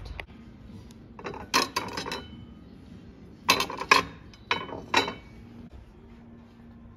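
Porcelain plates clinking against each other as plates in a stack are lifted and set back down: sharp clinks with a brief ring, coming in two bunches.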